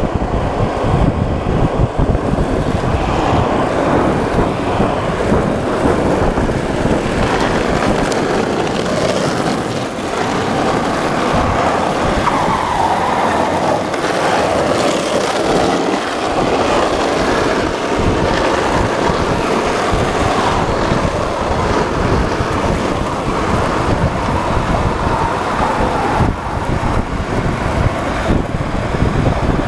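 Board wheels rolling fast down an asphalt road: a loud, steady rolling rumble.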